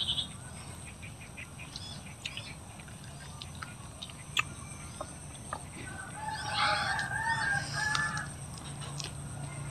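A rooster crows once, a wavering call about two seconds long, starting around six seconds in. Scattered small clicks come before it.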